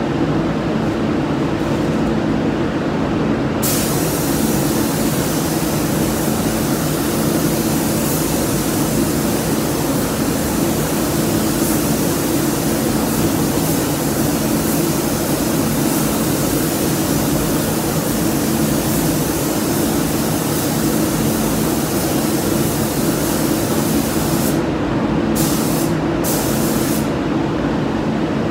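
Paint spray gun hissing in long continuous passes as the first coat of red paint goes on, then a few short trigger bursts near the end, over a steady low drone.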